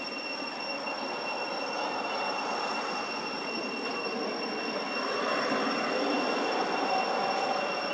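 Steady outdoor background noise with a constant high-pitched whine, getting a little louder about five seconds in.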